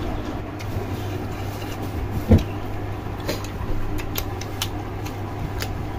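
Close-up chewing and mouth clicks as a man eats boiled chicken, a few short wet clicks over a steady low hum, with one louder thump about two seconds in.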